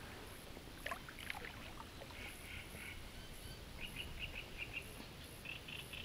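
Quiet sounds of a small boat on a lake: a few light water splashes about a second in, then a bird calling in a run of short, high chirps repeated a few times a second.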